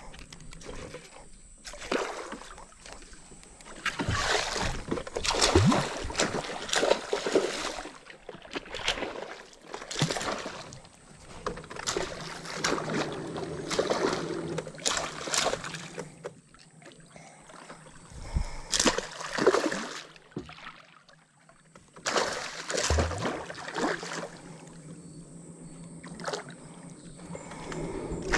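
Irregular water splashes and knocks around a small boat on a river, coming in uneven clusters with short quiet gaps, over a faint steady high whine.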